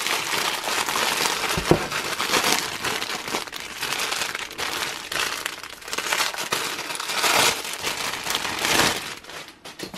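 Clear plastic packaging bag crinkling and rustling as hands open it and pull out a pair of leggings, with one dull knock about two seconds in.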